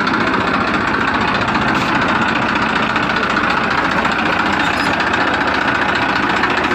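Steady engine sound running at an even, unchanging level.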